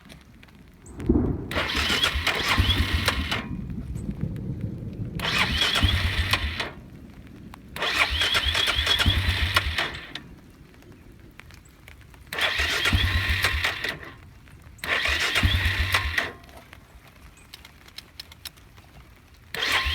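Suzuki Eiger 400 ATV engine being cranked over in five short bursts of a second or two each, with pauses between. Each burst stops without the engine catching and running: the hard starting the owner can't cure.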